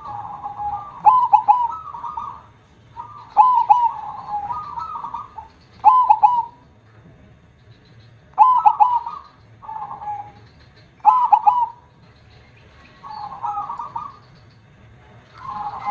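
Zebra dove (perkutut) singing its cooing song. There are about seven phrases, each a quick stutter of notes ending in a held coo, with short pauses between them. The voice is big.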